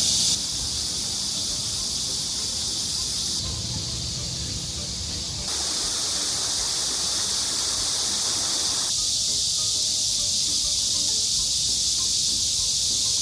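Steady, high-pitched outdoor insect chorus, a continuous shrill buzz. Its level and tone jump abruptly a few times, at about half a second, three and a half, five and a half and nine seconds in, as the shots change.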